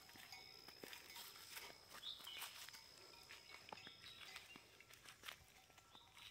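Faint footsteps on a dirt path covered in dry leaves, heard as scattered soft crunches. A thin, steady high tone stops about four seconds in.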